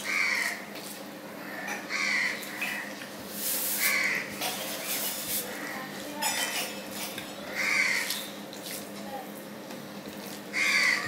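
Hand-eating sounds: fingers mixing rice and curry on a plate, and chewing. A crow caws about five times, a short harsh call every two to four seconds, and these calls are the loudest sounds.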